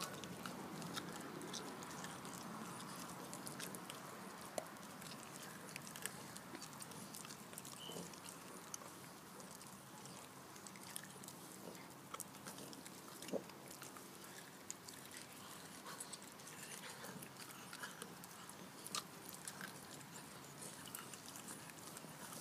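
A young dog chewing something with its head tipped back: faint, scattered mouth clicks and smacks.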